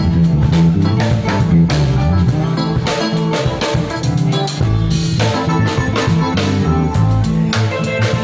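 Live band playing, with the electric bass guitar loud and close, moving bass lines over a drum kit's steady beat and cymbals.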